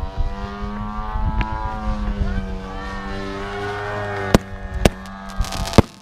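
Engine of an Extra 330 SC radio-controlled aerobatic model plane running in flight, its pitch slowly rising and falling. About four seconds in come two sharp firework bangs half a second apart, then a few more cracks near the end, from the pyrotechnics carried on the plane.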